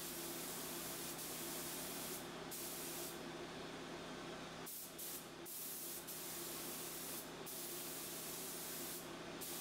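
3M Performance spray gun hissing steadily as it sprays lacquer, the high part of the hiss dropping away briefly several times, over a steady low hum.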